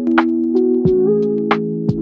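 Background music: sustained chords with a steady drum beat, the chord changing about a second in.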